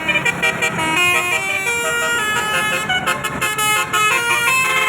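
Basuri (telolet) multi-tone vehicle horn playing a melody, several tones at once stepping up and down in pitch every fraction of a second, over a low traffic rumble.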